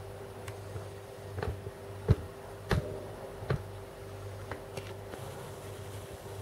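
Soundtraxx Tsunami sound decoder in an HO-scale ALCO C-630 model playing a steady low diesel idle drone through its small speaker. A handful of light clicks are scattered through the middle.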